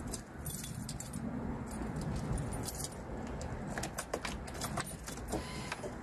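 Small metallic clicks and jingles from a test light probe and wiring being handled at a car door's power mirror switch connector, with a cluster of them about four seconds in, over a low steady rumble.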